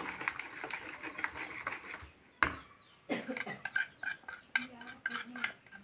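A spoon stirring and scraping thick rice-flour and coconut batter in a bowl. The spoon clinks and taps against the bowl again and again, with one sharper knock about two and a half seconds in.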